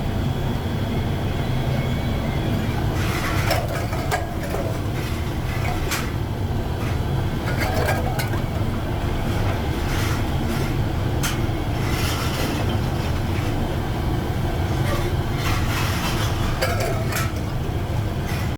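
Workshop machinery running with a steady low drone, with scattered sharp clicks and knocks.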